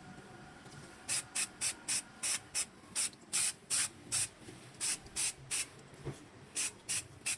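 A sprayer squirting cleaner onto brake parts in quick short hissing bursts, about three a second. The bursts start about a second in and pause briefly near the end.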